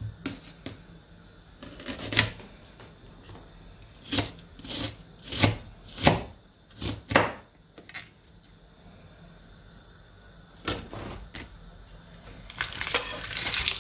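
Kitchen knife chopping an onion on a plastic cutting board: about ten separate knocks, unevenly spaced. Near the end, a longer burst of clatter.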